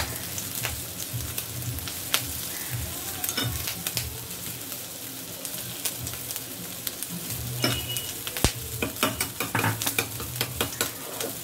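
Rohu fish pieces sizzling as they fry in mustard oil in a kadai, a steady hiss with scattered spits from the oil. In the last few seconds a run of light clicks and taps comes in.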